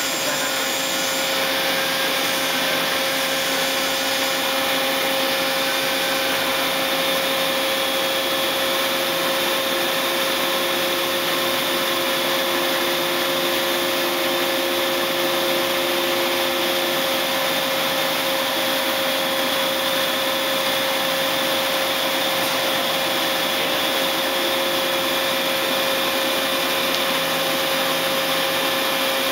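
Daewoo DNB-130R CNC horizontal boring mill running with its spindle turning: a steady motor-and-gear whine with several held tones over an even hum. An extra lower tone comes in about a third of the way through and drops away after several seconds.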